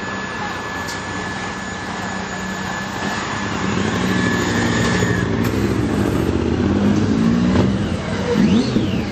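Vehicle engine heard from inside the passenger cabin, getting louder as it picks up speed, over a steady high whine that cuts out about five seconds in.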